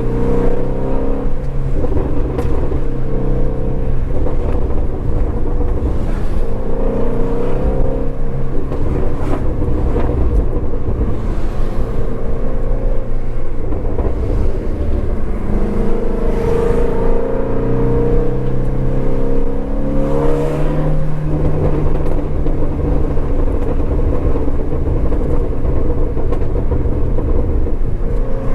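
2019 Shelby GT350R's 5.2-litre flat-plane-crank V8 running while the car is driven, its engine note holding steady for stretches and shifting up and down in pitch several times as the revs change.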